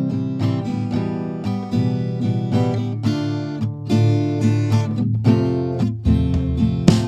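Background music: an acoustic guitar playing plucked and strummed chords in a steady rhythm.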